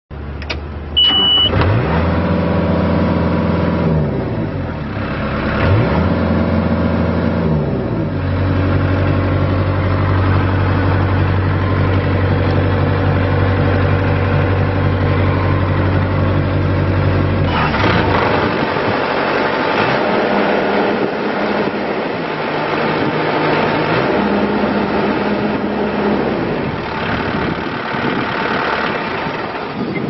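2013 Takeuchi TL230 compact track loader's Kubota diesel engine. A short high beep comes about a second in, then the engine starts. It is revved up and back down twice, then runs at a steady speed. From about 18 seconds the steady low hum gives way to a noisier, rougher running sound.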